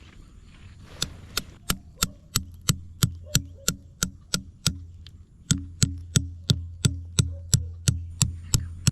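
Rapid repeated blows of a hand tool, about three a second, in two runs with a short pause about halfway.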